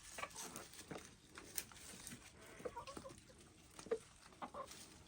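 A rooster's food call to his hens, scattered short, soft clucks, mixed with hens clucking as they feed on fresh greens.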